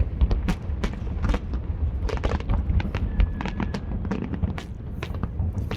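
Fireworks display: a rapid, irregular run of sharp cracks and pops over a continuous low rumble of booms.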